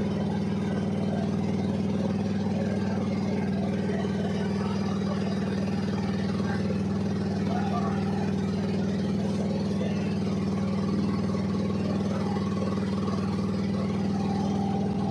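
Boat engine running steadily at an even, low hum.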